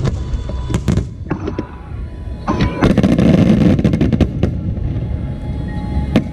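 Aerial fireworks going off: a few sharp bangs in the first couple of seconds, then a dense spell of crackling bursts about two and a half seconds in that lasts around two seconds, over a steady low rumble.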